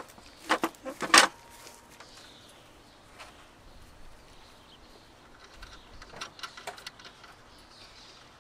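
Sharp clicks and knocks of hands working on parts in a truck's engine bay: a quick cluster of knocks in the first second and a half, then a few faint light clicks around six to seven seconds in.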